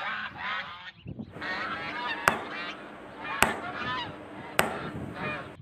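A flock of white domestic geese honking and calling again and again. Three sharp clicks cut through the calls, about a second apart in the second half.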